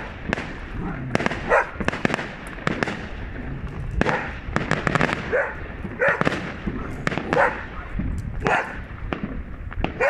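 Fireworks going off in a dense string of bangs and crackles, with a dog barking every second or two in between.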